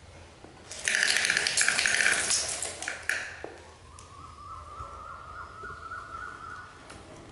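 Plastic toy ride-on truck rolling and scraping across a tile floor: a loud, rough rattle for about two seconds, then a fainter whine rising slowly in pitch.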